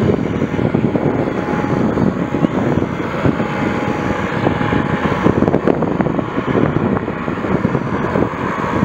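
Airbus Helicopters EC155B1 twin-turbine helicopter running with its main rotor turning as it taxis slowly, a loud steady rotor and turbine noise.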